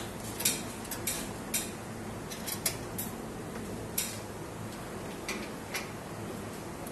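Screwdriver and rack-mount screws clicking and tapping against the switch's metal bracket and the rack rail: about eight sharp metallic clicks at irregular intervals.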